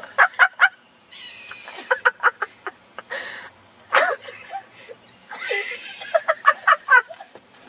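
Several bursts of hard laughter, quick 'ha-ha-ha' pulses broken by breathy gasps, one group after another.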